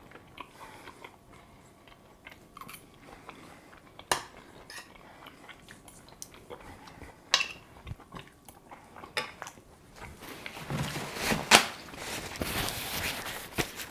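A metal fork clinking now and then against a stainless steel frying pan as pasta is eaten from it, with some chewing. Near the end, a paper towel rustling as hands are wiped on it.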